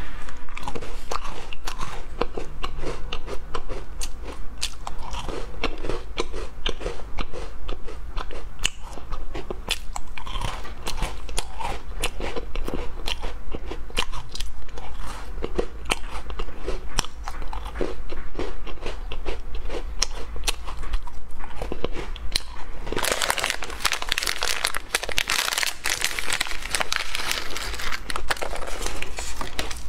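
Close crunching and chewing of small crisp coarse-grain mini cookies, bite after bite. About three-quarters of the way through, a foil-lined snack packet rustles and crinkles loudly for several seconds as it is opened and the cookies are poured out.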